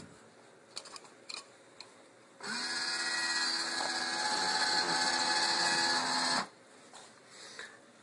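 A vending machine's motor whirring steadily for about four seconds, starting about two and a half seconds in and cutting off suddenly, with a few light clicks before it.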